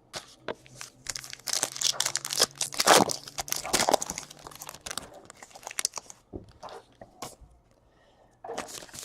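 Wrapper of a trading card pack being torn open and crinkled: a run of crackling tears and crinkles that dies down about seven seconds in, with a short burst of crinkling again near the end.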